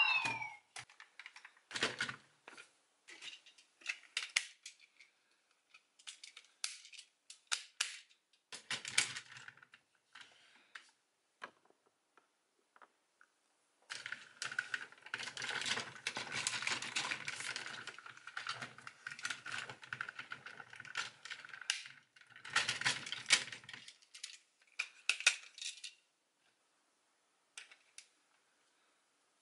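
Hard plastic parts of a DX X Train Thunder robot toy clicking and clacking as they are handled, pulled apart and snapped together. The clicks come scattered at first, then run thick and almost continuous for about ten seconds from halfway in, and stop a few seconds before the end.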